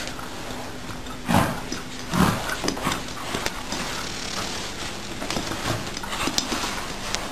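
A fabric pet bed with a cat inside being dragged across a rug and floor by a dog, scraping and rustling with scattered clicks and two louder bumps about a second and two seconds in.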